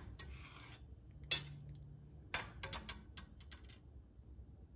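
Sharp clicks and light taps of sliced tomato halves being handled on a wooden cutting board: one tap about a second in, then a quick run of small clicks between about two and four seconds in.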